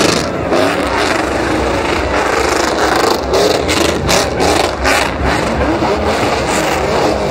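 Truck engine revving hard during a burnout, its revs rising and falling over and over.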